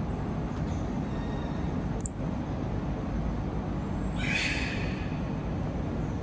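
Steady low background hum, with one sharp, very high-pitched click about two seconds in, the loudest sound, and a short hiss just after four seconds.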